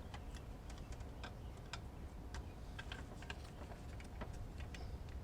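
Faint, irregular metallic clicks and ticks from hand tools on the fan clutch nuts: a 10 mm ratcheting wrench working a nut loose while a pry bar holds the water pump from turning.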